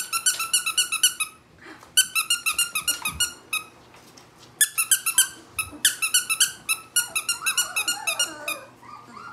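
A squeaky plush pig toy is squeezed over and over, giving three runs of rapid high squeaks. Near the end there is a puppy's whimpering.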